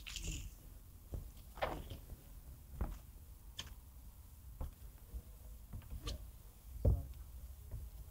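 Footsteps of someone walking, roughly one step a second, each a short dull knock, over a steady low rumble.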